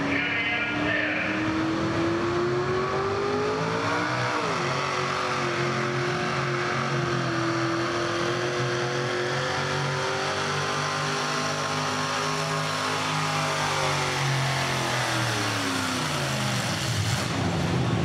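Modified Chevrolet S-10 pulling truck's engine at full throttle, hauling a weight-transfer sled. The engine pitch climbs for the first few seconds and dips sharply once, then holds high through the middle. Near the end it sinks as the sled drags the truck down to a stop.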